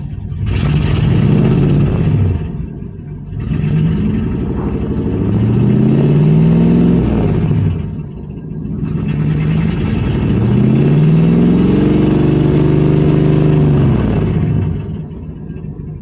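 1985 Chevrolet Suburban's carbureted gasoline V8 being revved up and back down three times by pumping the gas pedal. The later two revs are held for several seconds each, just after a hard start.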